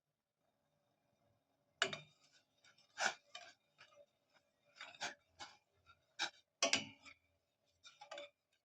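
Kitchen utensils clinking: about a dozen irregular, sharp taps that start about two seconds in.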